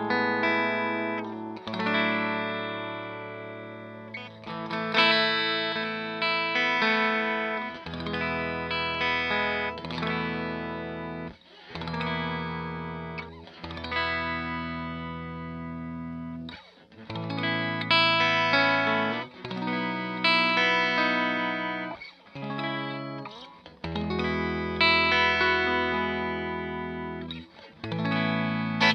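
Fender Stratocaster electric guitar played through a freshly built Hiwatt DR103 clone valve amplifier with four EL34 power tubes, into a 2x12 cabinet with Celestion Vintage 30 speakers, close-miked with an SM57. Chords are strummed and left to ring, each dying away before the next, with a few short breaks between phrases.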